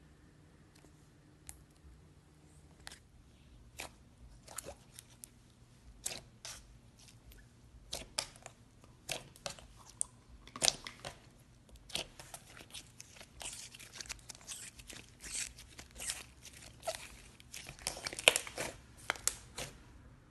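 Slime squished, kneaded and stretched by hand, giving a run of crackling clicks and pops from trapped air. The clicks are few at first and grow denser and louder toward the end.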